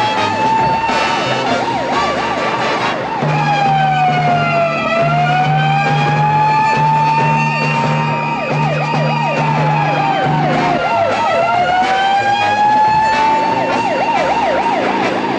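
Ambulance siren running continuously, alternating slow rising-and-falling wails with stretches of fast yelping warble.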